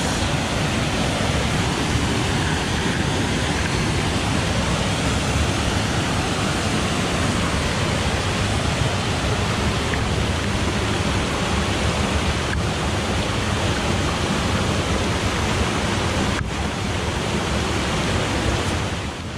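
Small woodland waterfall on a beck, heard close up at its foot: a loud, steady rush of falling water.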